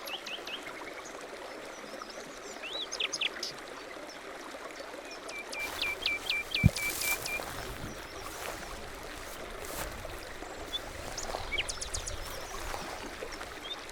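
Small birds chirping and singing over a steady hiss, with a quick run of about seven repeated notes around the middle. A single sharp knock just after the middle is the loudest sound.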